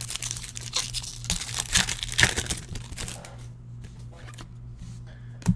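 Crinkling and rustling as trading cards and their pack wrapping are handled, busiest in the first three seconds and then fainter, with a single knock near the end.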